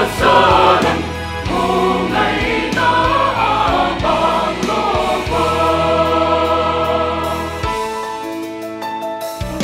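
Mixed church choir of men and women singing a gospel song in harmony. They hold a long chord about halfway through, then sing more softly near the end.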